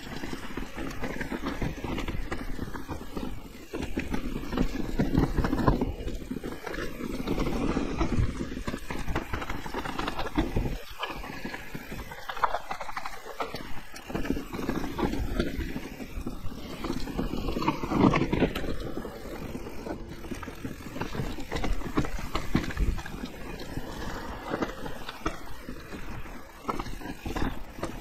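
Electric enduro mountain bike descending a rough trail: wind rumbles on the microphone while the tyres, fork and frame rattle and knock irregularly over roots and rocks.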